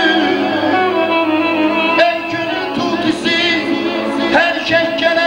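Male voice singing a long, melismatic mugam-style line without words, with fast wavering ornaments near the middle, over sustained chords from an electronic keyboard.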